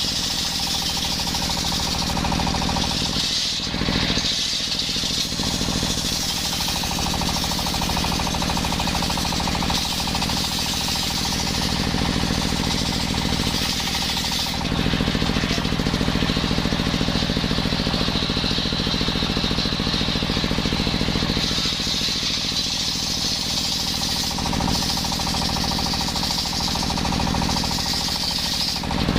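Engine-driven circular saw (serkel sawmill) running steadily while sawing a coconut-wood beam. The steady drone grows a little louder about halfway through for several seconds.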